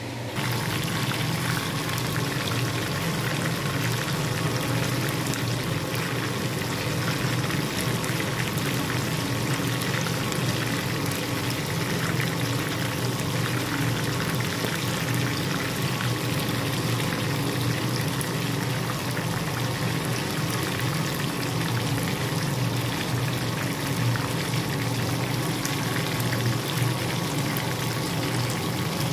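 Chicken wings deep-frying in a pan of hot oil: a steady sizzle and bubbling of the oil, with a low hum underneath.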